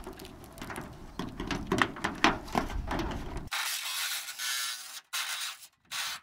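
Clicks and knocks as the roof-vent frame is handled over the cut-out. From about three and a half seconds in, a cordless reciprocating saw cuts the metal roof in short stop-start bursts, trimming the vent opening.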